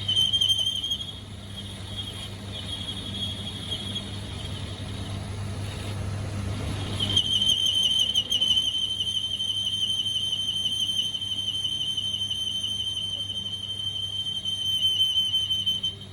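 A workshop machine running with a steady high-pitched whine over a low hum; the whine fades for several seconds and comes back stronger about seven seconds in.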